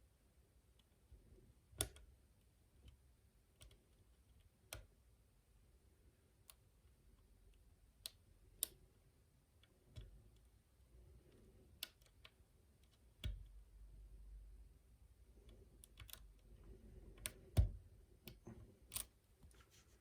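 Faint, irregular clicks of a lock pick and tension wrench working the pins of a challenge lock. There are a dozen or more single sharp clicks spaced unevenly, a few of them louder.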